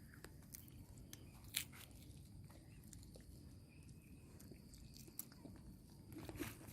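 Faint scattered clicks and crunches of a baby monkey biting and chewing rambutan, one louder click about one and a half seconds in, over near silence.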